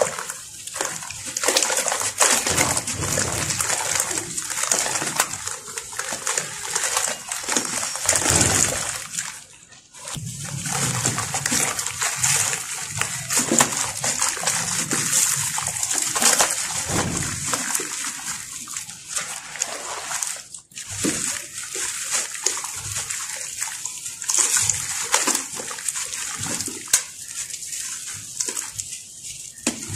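Dry sand-cement lumps crumbling in bare hands, the gritty powder sifting down into a plastic tub: a steady grainy hiss full of small crackles. It breaks off briefly about ten seconds in and again about twenty seconds in.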